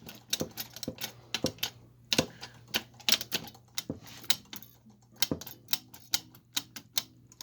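Small metal carburetor parts and hand tools clicking and clinking in a rapid, irregular patter as a Motorcraft carburetor is taken apart and refitted by hand.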